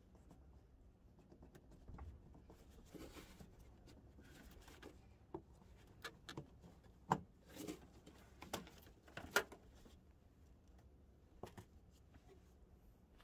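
Faint, scattered clicks and plastic knocks of gloved hands working the wiring connector off a 2005 Toyota Tacoma's headlight bulb, with a few sharper clicks about halfway through.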